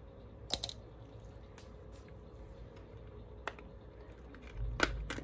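Small metal and rubber pump parts being handled and set down on a workbench: a few scattered sharp clicks, then near the end a duller knock followed by two sharp clicks, over a faint steady hum.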